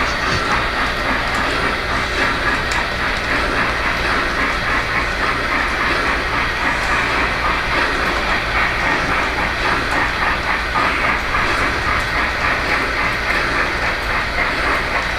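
O-gauge Lionel model trains running on Fastrack track: a steady rolling rumble with rhythmic clicking.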